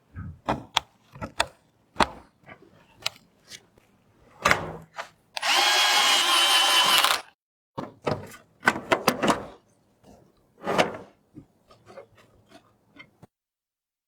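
Clicks and knocks of computer parts being handled and fitted, with an electric screwdriver running in one steady burst of about two seconds, about five seconds in.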